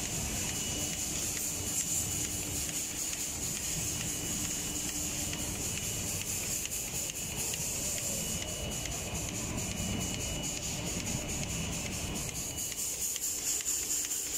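Automatic spray-painting line running, its wire-mesh conveyor carrying panels out of the machine: a steady mechanical hiss and rumble with light, regular ticking that grows more distinct in the second half.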